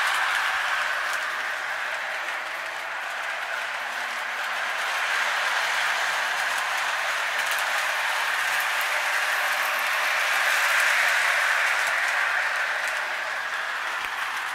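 Lionel O-27 three-rail toy steam locomotive running on its track: a steady whirring rush of motor and wheels on the rails that swells as the engine passes close by about ten seconds in.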